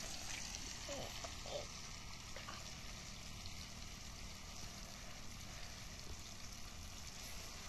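Aloo matar (potato and pea curry) sizzling in a cooking pan: a steady, even hiss.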